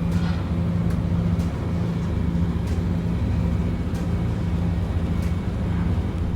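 Steady low engine hum under a constant rushing noise, with no change in pitch.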